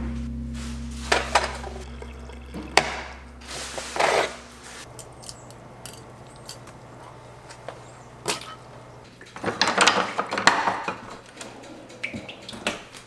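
Acoustic guitar music fading out, then scattered knocks and clatters with short liquid, pouring sounds, from filleting a catfish and pouring cooking oil into a cast iron skillet.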